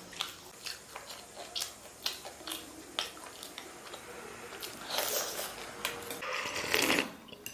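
A person eating pan-fried dumplings and instant noodles: chewing and biting with many small wet clicks, and two longer noisy stretches about five and six and a half seconds in.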